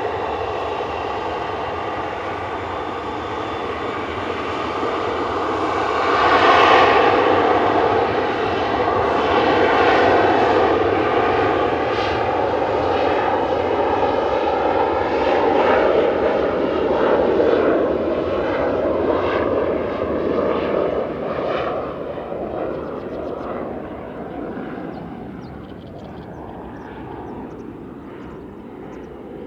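Aircraft engine noise, swelling to its loudest about six seconds in, then slowly fading away with a gently falling pitch.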